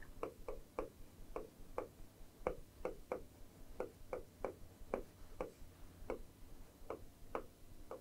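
Stylus tapping and clicking against the glass of an interactive display as handwriting is written, irregular light ticks about two a second.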